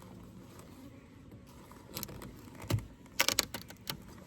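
A few sharp clicks and knocks in the second half, with a quick cluster of clicks just past the middle, typical of wooden hive frames being handled and knocking against the hive box.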